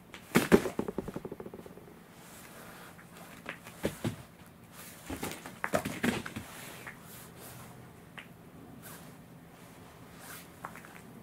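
A cat's paws and claws scrabbling and patting on a wooden floor as it spins after its own tail: a fast run of taps and clicks just after the start, then scattered taps and bumps.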